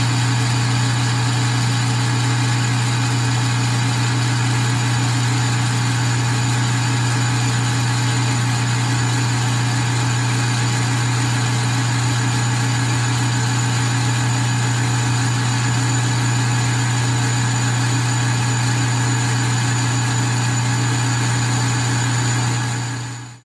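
Metal lathe running steadily as a carbide tool cuts 12L14 leaded free-machining steel, a steady hum with one strong low tone. It cuts off suddenly at the end.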